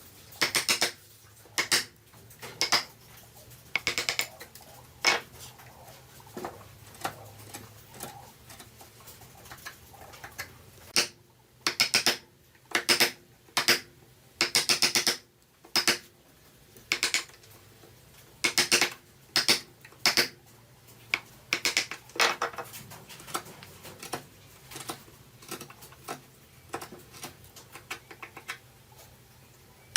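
Hand tools cutting wood in short, sharp strokes, irregularly spaced with brief pauses between groups of strokes.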